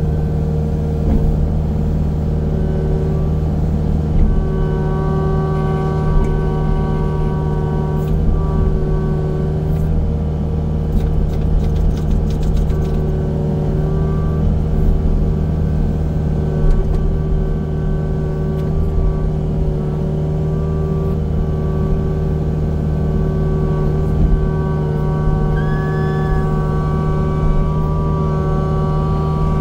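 Heavy machinery engine running steadily, with higher whining tones that come and go every few seconds as it works clearing trees.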